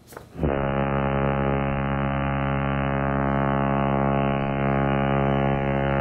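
A loud sustained low drone from the film's score: one held, unchanging chord-like tone with many overtones, starting suddenly just after a short click about half a second in.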